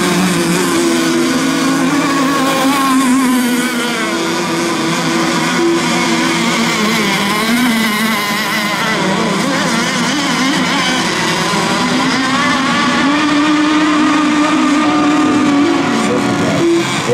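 Several radio-controlled racing boats running flat out together, their high motor notes overlapping and wavering up and down in pitch as they race around the course.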